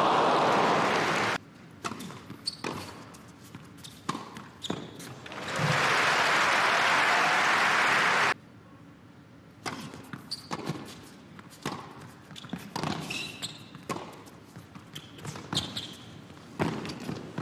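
Tennis ball bounces and racket strikes, sharp separate knocks of a rally and of the ball being bounced before a serve. Twice, crowd applause fills the hall and cuts off abruptly: once at the start and once from about five and a half to eight seconds in.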